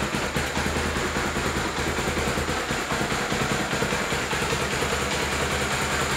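Honda Tornado 250's air-cooled single-cylinder four-stroke engine idling steadily, with an even, rapid beat.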